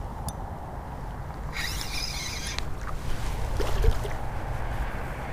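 Low, steady rumble of wind buffeting the microphone, with a brief burst of hiss about a second and a half in and a few faint scuffs from movement.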